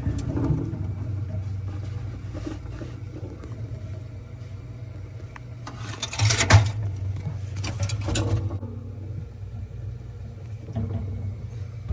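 Steady low hum of a refrigerator running, with a sharp knock about six and a half seconds in and a few lighter handling knocks after it.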